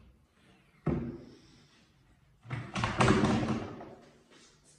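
Upper kitchen cabinet door being opened by its bar handle: a sudden knock about a second in, then a louder, noisier clatter lasting about a second, starting about two and a half seconds in.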